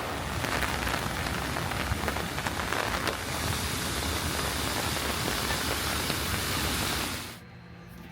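Steady rain falling, an even hiss with scattered drop clicks, cut off abruptly about seven seconds in, leaving a much quieter background.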